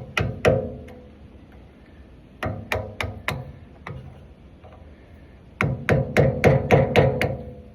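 Sharp metal-on-metal tapping with a short ring after each blow, in three bursts: about three taps, then four, then seven or eight quicker ones near the end. It is the tab of the retaining washer on a boat trailer hub's spindle nut being knocked over to lock the nut in place.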